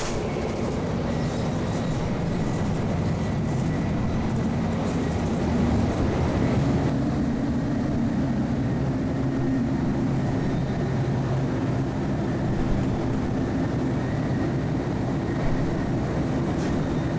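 Steady rumble of a Shinkansen bullet train running, heard from inside a passenger car.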